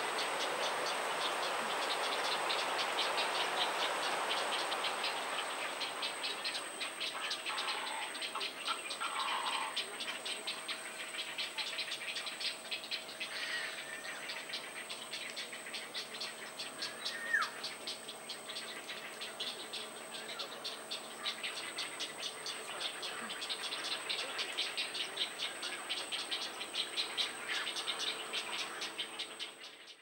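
Forest ambience: a dense insect chorus pulsing rapidly, over a steady hiss that is loudest in the first few seconds, with a few short bird calls, one sweeping call about seventeen seconds in.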